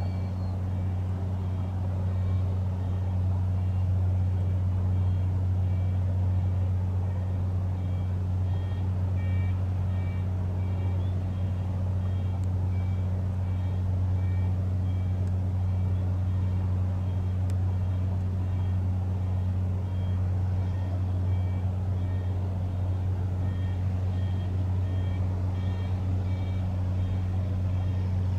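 Leonardo AW139 helicopter idling on the ground during an engine run, its twin Pratt & Whitney PT6C-67C turboshafts running and rotors turning. It makes a steady, unbroken low drone. Faint, short high-pitched beeps come and go over it.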